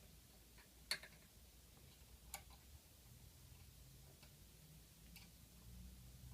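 Near silence with a few scattered faint clicks, the loudest about a second in, and a faint low hum coming in about halfway through.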